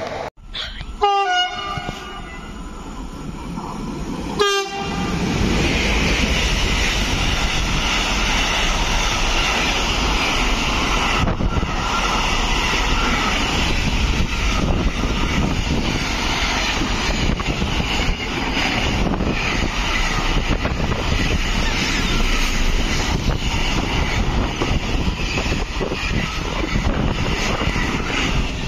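A train horn gives two short blasts, about one and four seconds in. Then a long freight train of container and tank wagons passes close by, a loud, steady rumble with wheel clatter.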